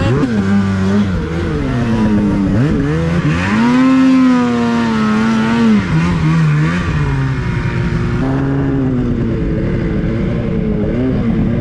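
Two-stroke mountain snowmobile engine being ridden under varying throttle. Its pitch dips about two and a half seconds in, climbs and holds high for a couple of seconds, then falls back a little before six seconds and runs on more steadily.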